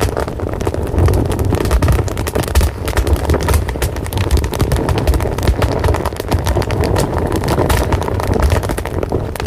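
Fire burning, crackling and popping steadily over a low rumble.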